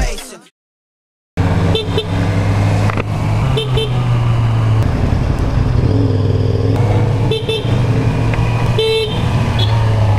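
Motorcycle engine running steadily while riding on a wet road, with a hiss of road noise, starting about a second in after a brief silence. A few short horn beeps sound over it.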